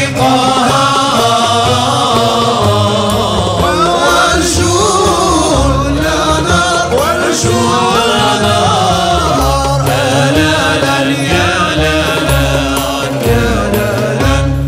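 Moroccan Andalusian (al-Ala) orchestra performing: voices singing a winding melody together over the instruments, with a steady low drum beat underneath.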